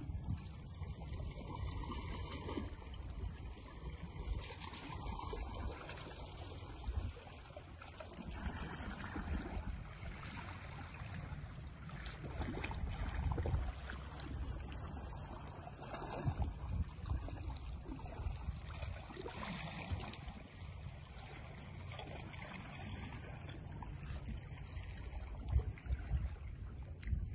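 Wind rumbling on the microphone, with small waves washing against a rocky shore.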